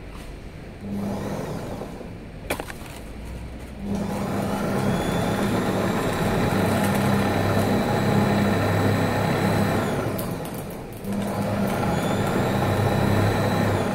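Belt-driven wire-straightening machine with a small electric motor spinning its straightener rotor while 0.5 mm wire is pulled through. It runs in bursts: a brief spin-up about a second in, a single click, then a longer run from about four seconds that winds down around ten seconds, then starts again. Its whine rises at each start and falls at each stop.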